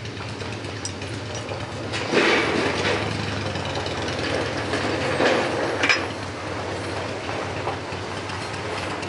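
The screw of a Parker 4X bench vise being cranked round by its T-handle to wind the jaw out, a continuous metal-on-metal rattling and scraping, louder about two seconds in and again around five to six seconds, over a steady low hum.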